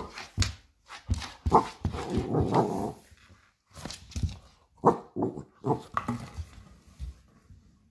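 A pet ferret giving a string of short, rough vocal sounds in irregular bursts as it is handled and mouths at a hand.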